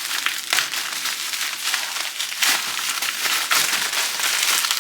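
Bubble wrap and plastic packaging being handled and pulled away from a brush case, a continuous irregular crinkling and rustling.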